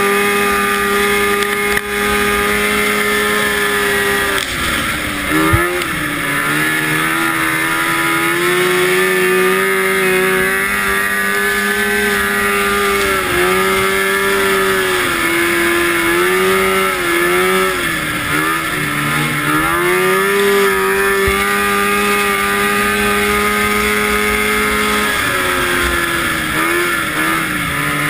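Vintage 340 fan-cooled two-stroke snowmobile engine running at high revs under race throttle. The pitch dips and climbs back four or five times as the throttle is eased and reopened. There is one short thump about five seconds in.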